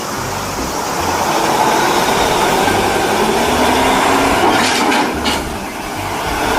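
Loud, steady vehicle noise with a faint tone that slowly rises in pitch. It starts and stops abruptly, like an edited-in sound effect.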